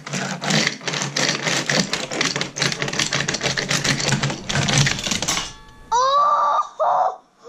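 Rapid, dense clattering and clicking for about five and a half seconds, then a child's high-pitched wailing cry near the end.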